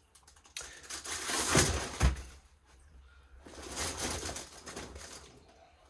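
Packing paper rustling and crinkling as a shipping box is opened and handled, in two bursts, with a dull thump of the box about two seconds in.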